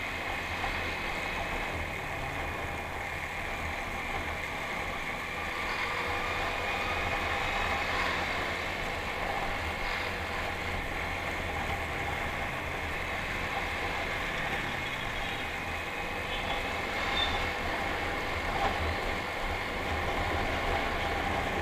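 Motorcycle engine running steadily while riding at road speed, its pitch drifting a little up and down as the throttle changes, over a low rumble of wind and road noise.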